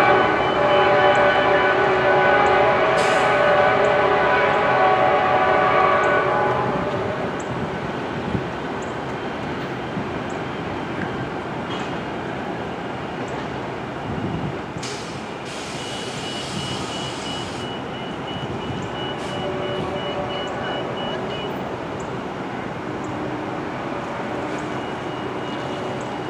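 Nathan K5LA five-chime air horn on an EMD F59PHI passenger locomotive sounding a steady chord, which stops about six or seven seconds in. After that, the rumble and rail noise of the train rolling away.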